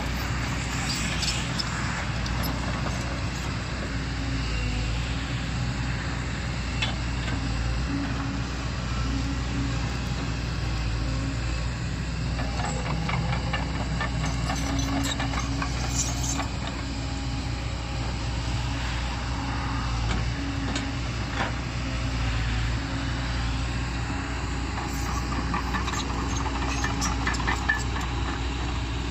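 Kobelco SK140 crawler excavator's diesel engine running steadily as it digs and scrapes soil, with occasional short knocks.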